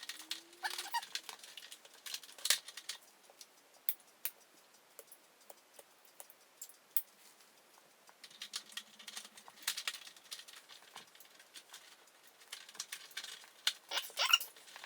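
Scattered clicks, taps and light rattles of hands working on a light fixture and its wiring, with a short squeak near the start.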